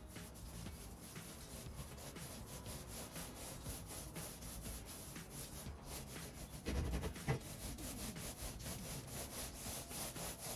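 Paint roller being worked over a wooden board wall: a fast, even, repeated rubbing as the roller is pushed back and forth, with a louder bump about seven seconds in.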